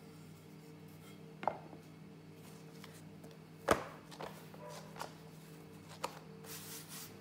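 A few sharp wooden knocks on a silicone pastry mat as a wooden rolling pin is worked and set down, the loudest a little under four seconds in, then a short soft rustle as a sheet of puff pastry dough is lifted and folded. A faint steady hum runs underneath.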